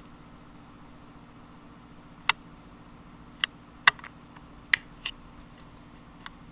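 About five sharp plastic clicks, scattered from about two seconds in to about five seconds in, as the buttons of a cheap handheld camcorder are pressed close to its built-in microphone. Under them runs a steady low hum.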